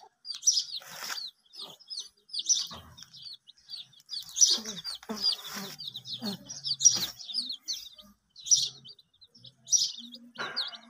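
A flock of domestic chicks peeping continuously: a dense chorus of many short, high chirps overlapping one another. A few short scuffing noises stand out among the peeps.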